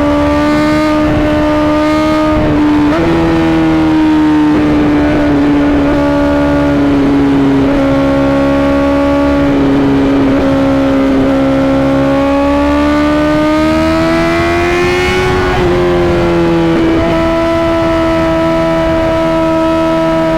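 Honda CBR1000RR-R SP inline-four engine running at steady, fairly high revs while under way. Its pitch steps up slightly about three seconds in, sags slowly, climbs again, then drops back about three-quarters of the way through.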